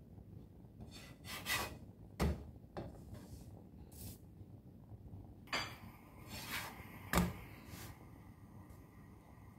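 A slotted spatula scraping across a nonstick frying pan as it presses and turns a potato flatbread, with a few short scrapes and two sharp knocks against the pan, the loudest about two seconds in and about seven seconds in.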